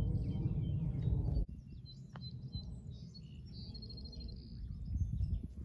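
Wind rumbling on the microphone, which stops abruptly about a second and a half in; after that, birds chirp and trill in the background over a fainter wind rumble.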